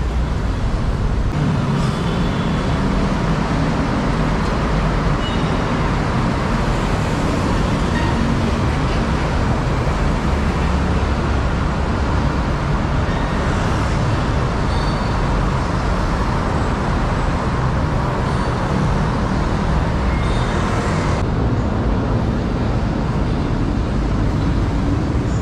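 Steady road traffic noise from passing cars, with engines and tyres running on the street.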